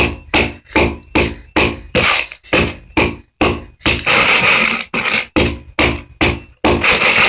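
Layer pellets and oyster shells being pounded into powder in a box: rapid blows, about three a second, broken twice by longer grinding scrapes.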